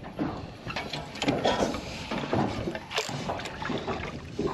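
Water lapping and splashing against the side of a small boat, with wind and a few scattered light knocks.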